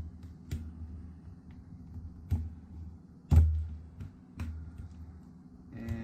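Plastic screen bezel of a Lenovo ThinkPad T490s being pried off the glued LCD panel with a plastic card: about four sharp snaps as sections pop loose, the loudest just past the middle.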